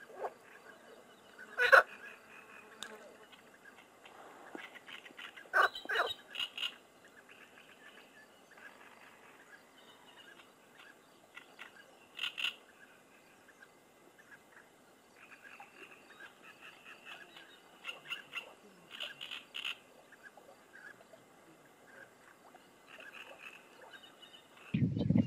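Frogs croaking and birds calling at intervals, the loudest calls about 2 and 6 seconds in. Near the end a louder low rumble starts suddenly.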